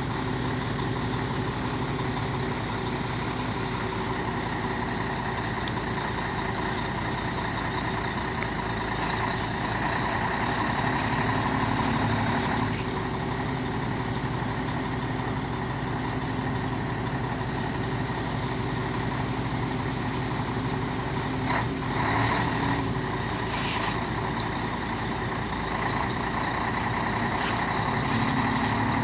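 Heavy truck's diesel engine running steadily at an even pitch, with a few short knocks past the middle.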